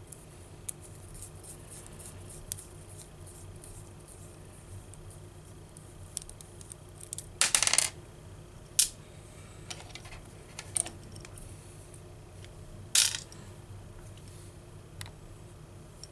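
Small screwdriver backing out the tiny retaining screws of a chrome 4-pin CB microphone connector: faint scattered ticks of metal on metal, with a few sharper metallic clinks and clatters, the loudest about halfway through and again a few seconds later.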